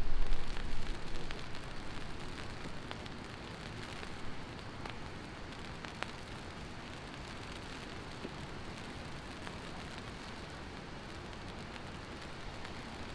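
Heavy rain falling steadily, an even hiss with scattered sharp drop ticks. A low rumble at the start fades away over the first two seconds.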